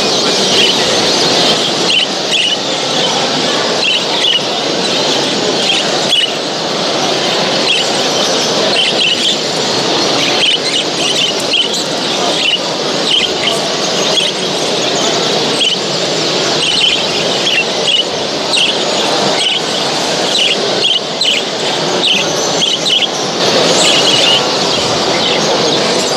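Many show birds chirping and calling at once: a dense, unbroken chatter of short high notes over a steady low background din.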